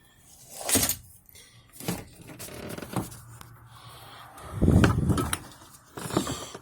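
Scattered clicks and knocks of hand tools and parts being handled on an engine, with a heavier, duller thump about three-quarters of the way through.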